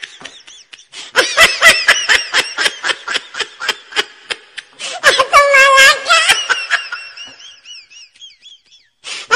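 Several young men laughing hard in quick rhythmic bursts. About five seconds in one voice rises into a long, high, wavering laugh, which then trails off.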